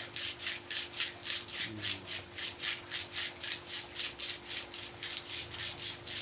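Jenitri (rudraksha) seeds rubbed and rattled rhythmically over a patient's body in a massage, quick scratchy strokes at about five a second.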